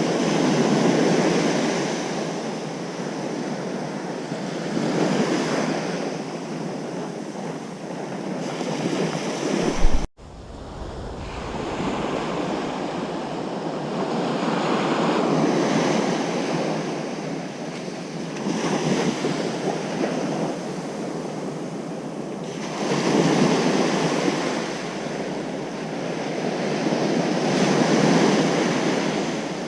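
Ocean surf breaking on a beach, swelling and easing as waves come in every four to five seconds. About ten seconds in, the sound cuts out abruptly for a moment and then rises back.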